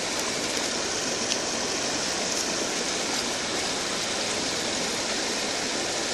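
Steady rush of fast-flowing muddy stream water pouring through and past a woven bamboo fish fence, an even unbroken hiss with a few faint ticks.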